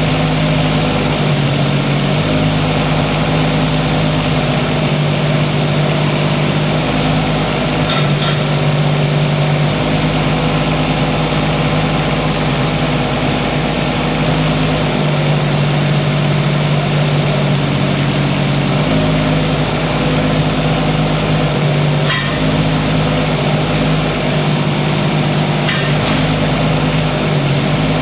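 Kubota K008-3 mini excavator's small three-cylinder diesel running steadily while its hydraulics are worked, the engine note shifting every few seconds as the controls load and unload it. A few faint knocks come through.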